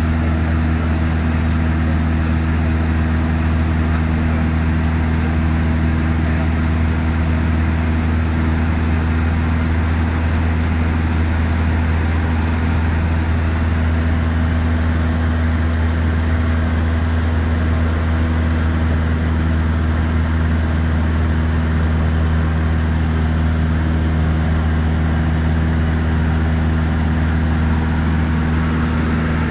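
Cessna 152's four-cylinder Lycoming O-235 engine and propeller droning steadily in flight, heard from inside the cockpit as a constant low hum with steady overtones.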